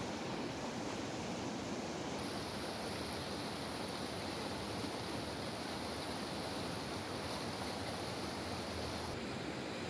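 Shallow stream rushing down a stone-lined channel and over low steps in its bed: a steady, even rush of water.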